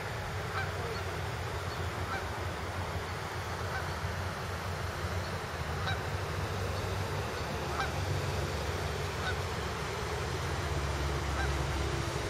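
Canada geese honking now and then, short separate calls scattered through, over a steady low rumble.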